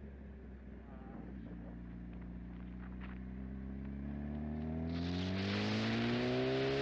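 A vehicle engine speeding up, its pitch climbing slowly and getting louder, with a rushing noise joining about five seconds in.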